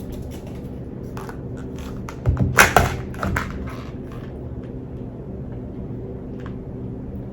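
A slushie sipped through a straw: small clicks of the cup and lid, then a short, loud slurp about two and a half seconds in, over a steady low hum.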